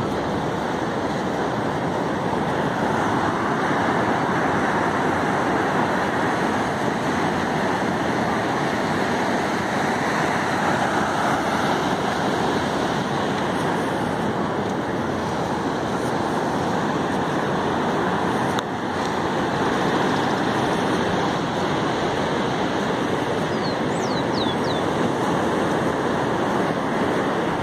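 Ocean surf breaking and washing up a sandy beach: a steady rushing noise.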